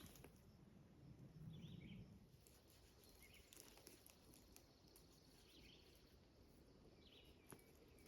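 Near silence outdoors, with a few faint, short bird chirps spread through it and a brief low rustle a little under two seconds in.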